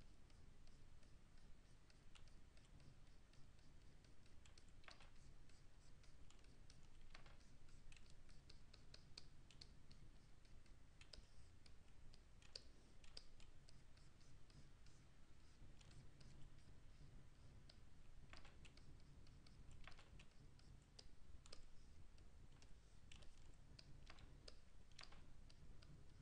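Near silence: faint, irregular clicks of computer keys and input devices, over a low steady hum.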